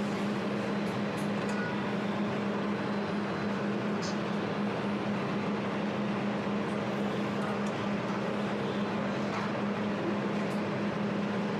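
200W jewelry laser welding machine running after power-on: a steady hum with an even whir, typical of its cooling fans and water pump, and a few faint clicks.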